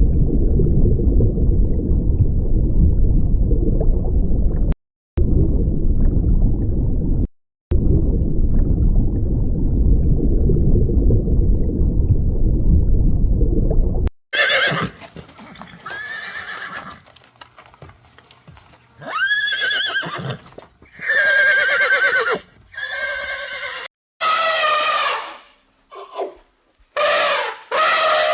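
A loud low rumbling noise, broken by two short cuts, then about halfway through a series of five or six quavering animal calls, each a second or so long, some rising then falling in pitch.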